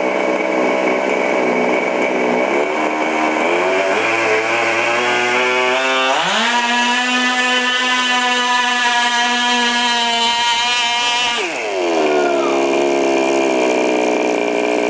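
Small two-stroke gas engine of an RC pulling truck revving up in steps to high speed, held there for about five seconds, then falling back to a lower speed about three quarters of the way through.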